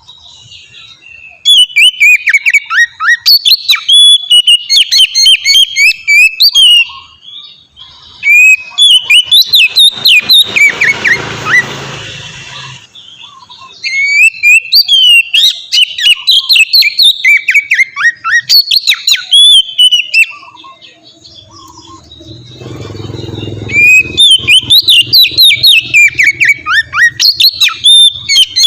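Oriental magpie-robin (kacer) singing a long, varied song of rapid whistled notes and glides, in several bouts with short pauses between them.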